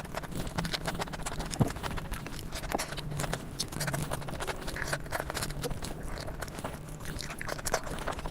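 Close-miked eating sounds: quick, irregular wet chewing clicks and mouth smacks, over a faint steady hum.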